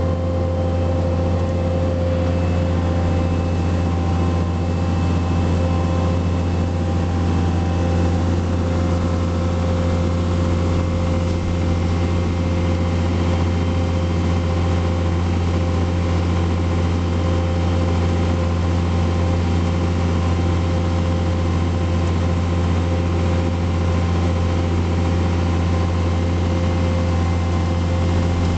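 John Deere 4700 self-propelled sprayer's diesel engine running steadily as the machine drives through the field, a constant low hum with steady tones above it, heard from outside the cab.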